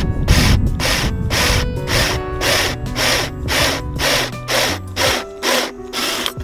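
Cordless drill boring a hole in a wooden block, under dance music with a steady beat of about two strokes a second.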